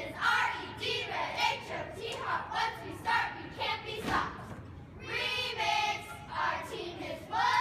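A squad of young cheerleaders chanting a cheer in unison, many children's and girls' voices shouting the words together.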